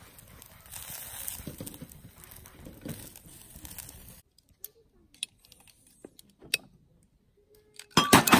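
Wood fire crackling and hissing in a grill, with scattered pops, until it cuts off about four seconds in. A few faint clicks follow in near silence. Just before the end a loud, dense, rapid crackling starts abruptly.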